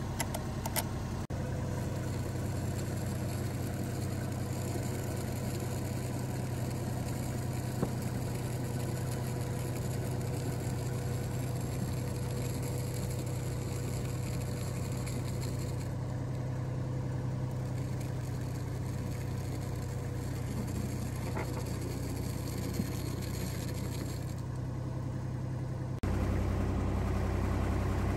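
Kubota tractor's diesel engine running steadily as the power source for pulling heavy copper cable through a stripping jig. There are a few light metal clicks near the start, and near the end the engine comes in louder and deeper.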